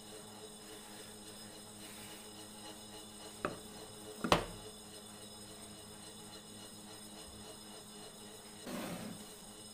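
Small pine pieces handled on a wooden worktable: a light knock, then a sharper wooden knock a second later, and a brief scrape near the end, over a steady low electrical hum.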